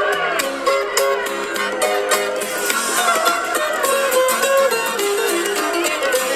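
A Hindi film song playing back on a Nokia 6 smartphone set to its Dolby Atmos music mode, here in an instrumental passage led by plucked strings.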